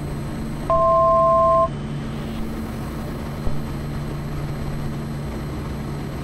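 Quest Kodiak 100's PT6A turboprop engine and propeller droning steadily, heard from the cockpit on a low approach. About a second in, a two-note electronic tone sounds for about a second, louder than the engine.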